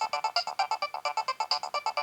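Nokia 3120 mobile phone ringtone playing: a fast, even melody of short electronic notes, about eight a second.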